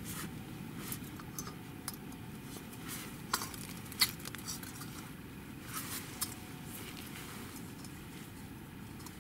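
Scattered light clicks and knocks of camping cookware being handled: a small gas burner being fitted onto a gas canister and a pot moved, with the sharpest click about four seconds in. The burner is not lit.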